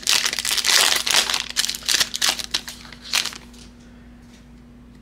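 Trading card pack wrapper from a 2022-23 Donruss Optic basketball box crinkling as it is torn open and handled, a dense crackle that stops about three and a half seconds in.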